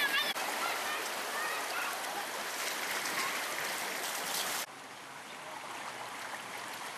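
Steady rushing and sloshing of floodwater in a flooded street, with a few short high-pitched calls in the first second or so. About two-thirds of the way in it cuts abruptly to a quieter steady hiss of water.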